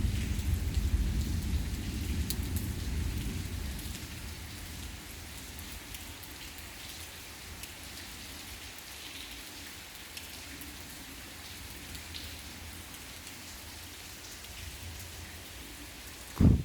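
Steady rain falling in a thunderstorm, with scattered drops ticking. A low rumble of thunder fades over the first few seconds, and a sudden loud low thump comes near the end.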